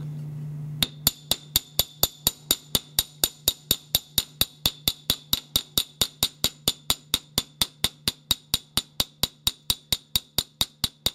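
Small gunsmith's hammer tapping a steel screw head in quick, even strokes, about four a second, each with a bright metallic ping: peening the metal of a damaged screw slot back into place. The tapping starts about a second in and keeps a steady rhythm.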